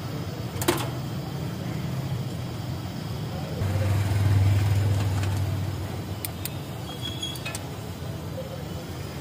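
Steady low hum of street traffic, with a vehicle engine swelling louder about four to five seconds in and then fading. A single sharp click comes near the start.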